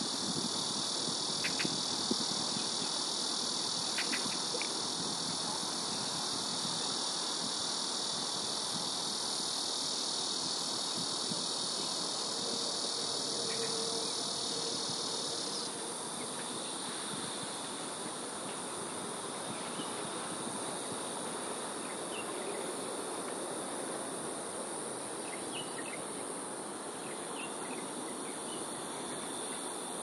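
Steady high-pitched insect chorus that drops away abruptly about halfway through, leaving a thinner high buzz, with a few faint short chirps.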